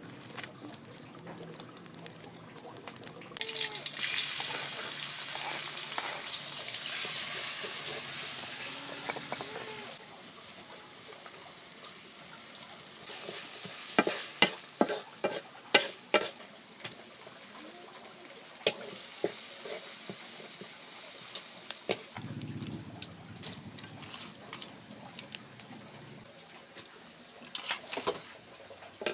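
Stir-frying in a wok: a hiss of sizzling oil from about four to ten seconds in, then a spatula scraping and knocking against the wok in quick clusters. Near the end, grated chayote is being sautéed.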